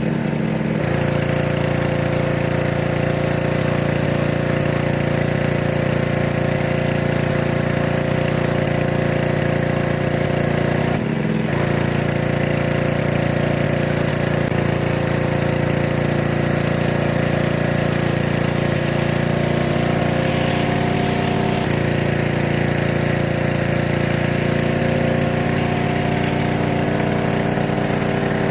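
Pressure washer running steadily while it sprays the fibreglass boat hull to strip mildew and lake scum. The motor note breaks off briefly about eleven seconds in and shifts slightly in pitch about twenty-two seconds in.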